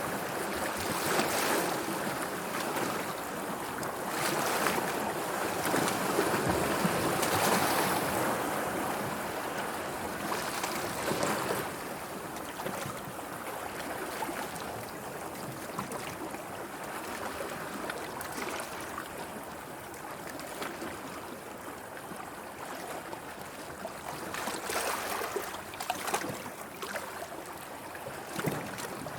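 Sea waves washing in, with a few sharper splashes here and there. The water is louder for the first ten seconds or so, then calmer.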